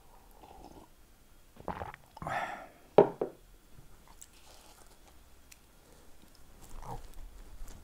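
Sipping coffee from a porcelain mug, then the mug set down on a wooden table with a sharp knock about three seconds in, the loudest sound. Near the end there is a bite into a slice of jam toast and some chewing.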